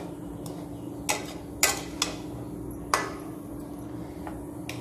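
A flat metal dosa ladle scrapes and knocks against a metal pan as it stirs a thick, crumbly coconut-and-sugar burfi mixture, with a few sharp clinks, the loudest about a second, a second and a half and three seconds in. The stirring is kept up non-stop so the mixture does not catch on the bottom. A faint steady hum runs underneath.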